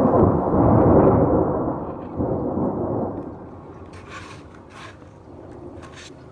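Thunder rumbling loudly for the first few seconds, then dying away, with a few short hissing noises near the end.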